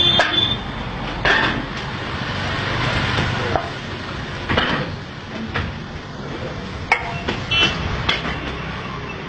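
Metal spatulas striking a flat iron griddle while chopping kothu parotta: irregular sharp clanks, about one a second, some ringing briefly, over a steady hum of street traffic.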